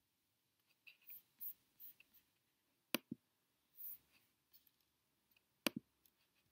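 Near silence with faint rustling and two sharp double clicks, one about three seconds in and one near the end.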